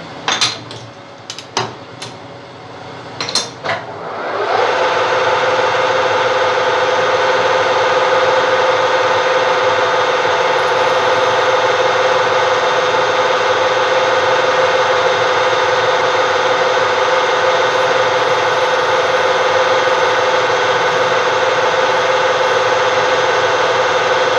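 A few sharp clicks and knocks, then, about four seconds in, a lathe comes up to speed and runs steadily at one pitch while turning the end of a plastic piston stop.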